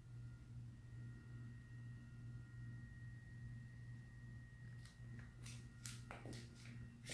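Quiet room tone: a low steady hum with faint steady high tones, and from about five seconds in a handful of light clicks and scuffs.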